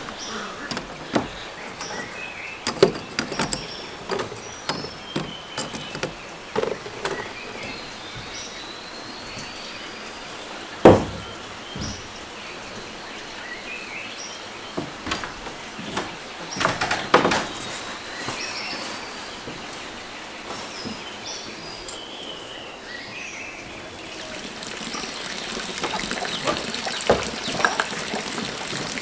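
Birds chirping, with scattered knocks and clatter of handling. The loudest is a single sharp knock about eleven seconds in.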